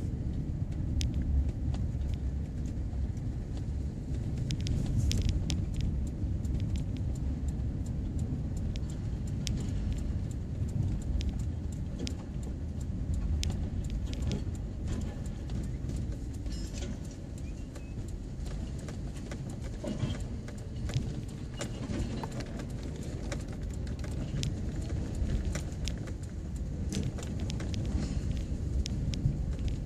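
Car interior road noise while driving slowly on a gravel road: a steady low rumble from the tyres and engine, with frequent small clicks and ticks of loose stones under the tyres.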